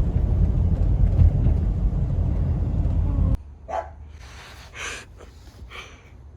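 Steady low rumble of road noise from a car on the move, which cuts off abruptly a little over three seconds in. Three short yelps follow in a quiet room, about a second apart.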